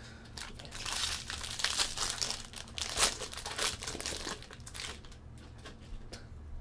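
Foil wrapper of a super jumbo baseball card pack crinkling and tearing as it is ripped open by hand. The crinkling runs for about five seconds, loudest around the middle, then dies down.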